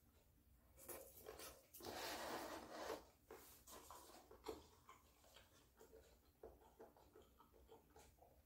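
Faint eating noises: a short noisy rustle about two seconds in, then soft scattered clicks of chewing.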